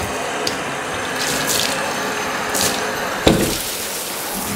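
Bathtub tap running steadily, water rushing into the tub for rinsing a shampooed dog, with one sharp knock about three seconds in.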